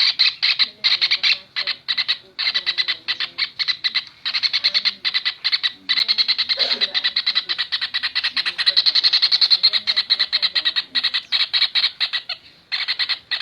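Kingfisher (tengkek raja udang) calling in a rapid, harsh chattering trill of fast repeated high notes, in long runs broken by short pauses, the longest one about 12 seconds in.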